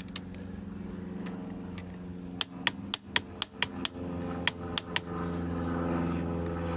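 Ratchet torque wrench on a cylinder barrel nut, giving a run of about a dozen sharp metallic clicks in quick, uneven succession as the nut is worked tight. A steady low hum runs underneath.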